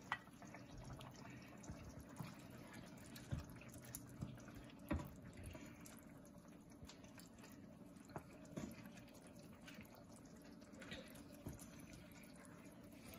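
Goat-liver sauce simmering in a covered pot: faint, scattered small pops and drips over a low steady hum.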